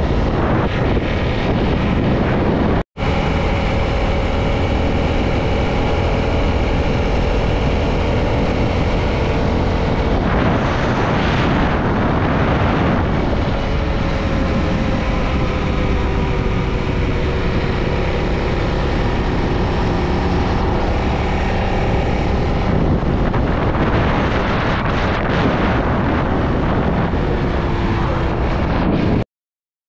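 Motorcycle engine running under way with wind rushing over the microphone, the engine note drifting up and down with speed. Briefly drops out about three seconds in and cuts off abruptly near the end.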